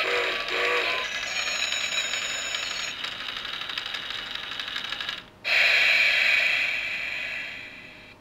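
Toy train coin bank running: a small plastic locomotive clatters around its track with a steady rattle, after the last notes of the toy's tune. About five seconds in the rattle breaks off and a louder, noisy sound effect starts, then fades away near the end.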